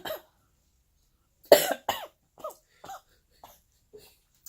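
A woman coughing in a fit, set off by spicy food going down the wrong way: a cough right at the start, then a hard cough about a second and a half in, followed by several shorter coughs that grow weaker.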